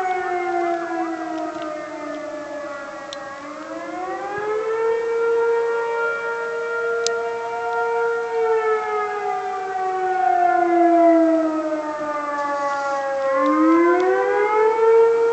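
Several outdoor warning sirens wail at once at different pitches, a Federal Signal 2001 among them along with a lower-toned siren. Their tones slowly fall and rise, overlapping, with one winding back up about four seconds in and again near the end. They are sounding for a fire.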